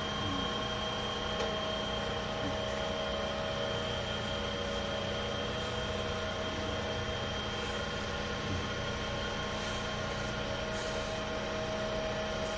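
Electric hydraulic hose crimper's motor and pump running at a steady hum, with a few constant whining tones and no change in pitch or level.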